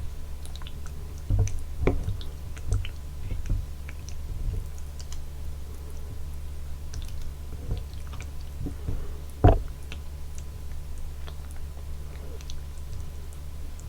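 Close-miked chewing of spicy soup tteokbokki, with soft wet mouth sounds and small clicks, a few louder knocks (the loudest about nine and a half seconds in), and a steady low hum underneath.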